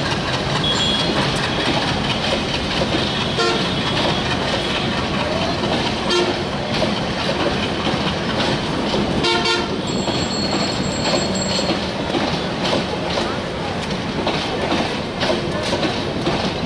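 Crowded passenger train running on the rails, a steady loud rumble and clatter of the coaches, with people's voices mixed in.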